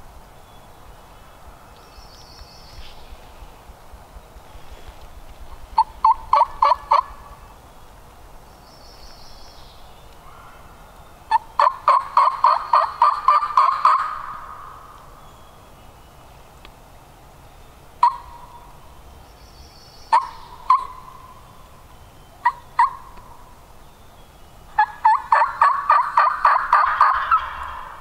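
Turkey yelping: runs of sharp, raspy yelps, each series a handful to a dozen notes at about four to five a second, with single clucks in between. The longest and loudest series comes near the end.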